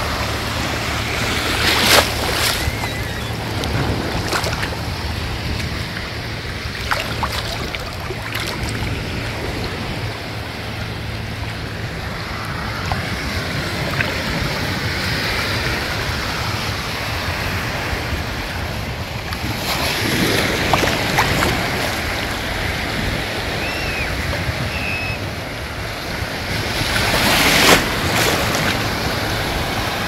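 Small waves lapping and washing over a shallow sandy shore, a steady surf wash with a low rumble of wind on the microphone. Louder splashes of breaking wavelets swell up about two seconds in, around twenty seconds, and again near the end.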